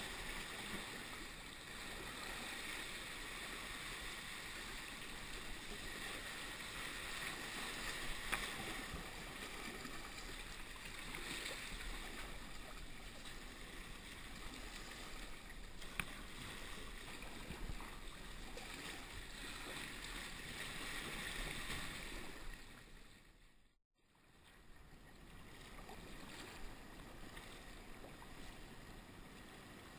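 Water sloshing and splashing around a sea kayak's hull and paddle in a choppy sea, with swell washing against rocks and some wind on the microphone. The sound fades briefly to silence and comes back a couple of seconds later.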